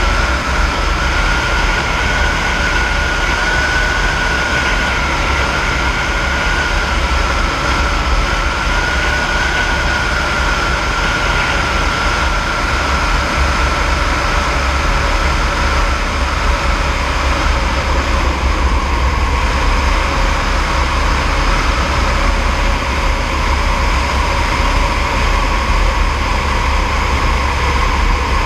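AS350 B3e helicopter in flight: steady turbine and rotor noise from its Arriel 2D turboshaft, a deep rumble under a thin high whine that sinks slightly in pitch about halfway through.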